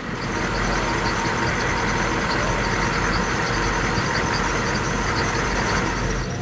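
Humvee diesel engine running steadily at idle close by, a constant low hum under a broad steady noise.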